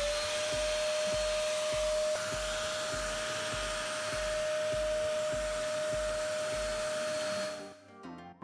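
Ash vacuum cleaner with a metal canister and a 1000 W motor running, a steady whine over a rush of air as it is tried out for suction, then switched off near the end.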